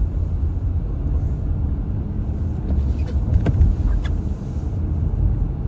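Steady low rumble of a car driving, heard from inside the car, with a few faint clicks about three to four seconds in.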